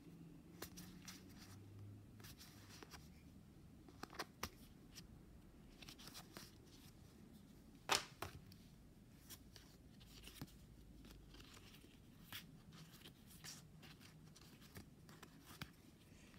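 Faint, scattered clicks and rustles of stiff game cards being handled and sorted in the hands, with a sharper click about eight seconds in.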